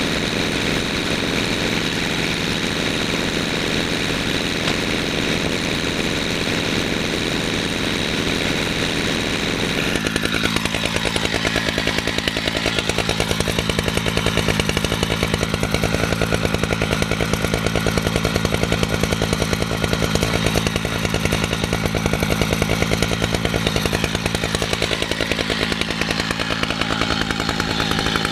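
A chainsaw engine running steadily. About ten seconds in it grows louder and rougher, with a fast, even pulsing.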